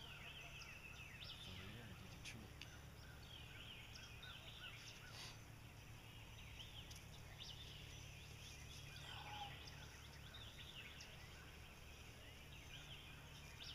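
Faint outdoor chorus of songbirds, many short chirps and trills, with a wild turkey gobbling.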